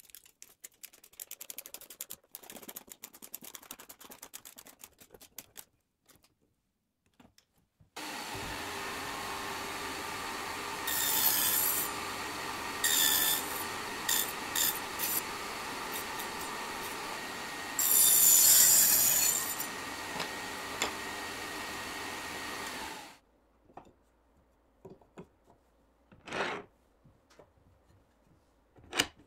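An electric power tool working wood. It is switched on about eight seconds in and runs steadily for about fifteen seconds, growing louder in short bursts as it bites into the work, then stops abruptly. Before it come light scraping and tapping on wood, and after it a few isolated knocks.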